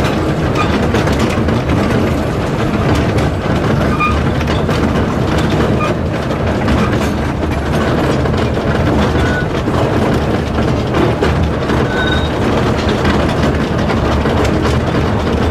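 Small passenger train carriage running along the rails: a steady rumble and clatter of wheels on track, with a few brief faint squeaks.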